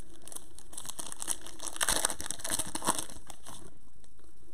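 Foil wrapper of a Panini Prizm retail trading-card pack being torn open and crinkled by hand. The crackling runs for about three and a half seconds, loudest in the middle, then stops.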